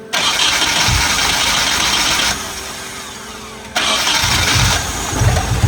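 1993 Nissan 240SX's 2.4-litre four-cylinder engine being cranked by its starter: it cranks for about two seconds, stops, cranks again about a second and a half later, and catches near the end, settling into a steady run. It is being fed by a known-good bypass fuel pump, the car's own pump having given low pressure.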